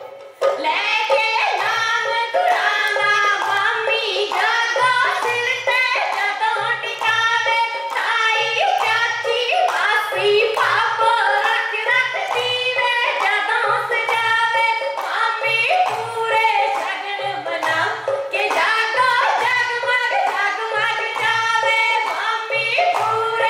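Women singing a Punjabi folk song (boliyan) for Gidha in high voices, over steady rhythmic hand clapping and a low drum beat.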